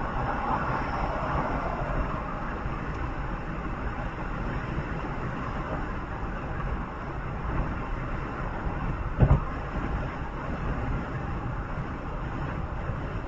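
Steady running noise of a moving vehicle, heard from inside, with one short thump about nine seconds in.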